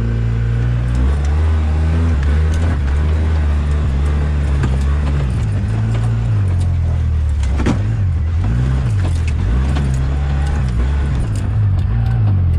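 A vehicle engine running steadily at a low pitch, which rises and falls several times in the second half, with a single sharp knock about eight seconds in.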